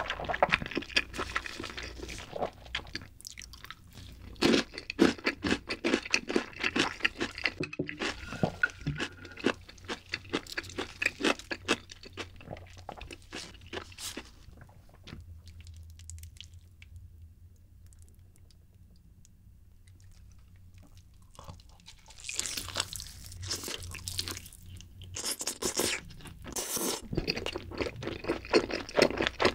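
Close-miked ASMR eating sounds: a person chewing a mouthful of black bean instant noodles with dense, wet mouth clicks. After a quieter pause in the middle, there is a few seconds of loud, sharp biting and tearing into a sauced grilled chicken leg, then more chewing.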